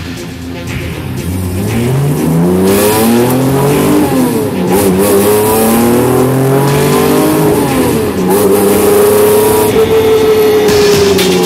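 Car engine heard from inside the cabin, accelerating through the gears. The revs climb, fall at an upshift about four seconds in, climb again, fall at a second upshift about eight seconds in, then hold fairly steady.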